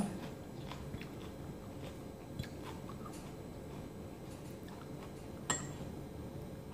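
Faint eating sounds: chewing and small clicks of fingers handling bell pepper pieces over a ceramic plate and bowl, with one sharp click about five and a half seconds in.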